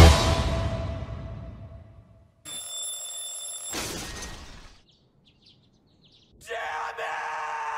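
The video's music dies away over about two seconds. After a gap comes a brief ringing sound effect, then a long drawn-out shout from a man's voice, its pitch slowly falling, from the anime's soundtrack.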